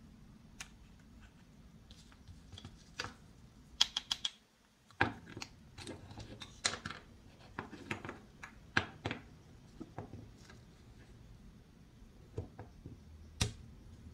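Painted wooden toy food pieces, the two halves of a play tomato, knocking and clicking against each other and on a wooden cutting board as they are handled and set down. Scattered sharp clicks and light knocks, with a quick rattle of clicks about four seconds in.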